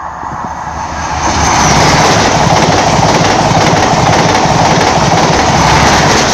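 A High Speed Train (InterCity 125) with Class 43 diesel power cars passing through the station at speed. The rushing rail and wheel noise builds over the first second or so, then stays loud and steady for about five seconds as the carriages go by.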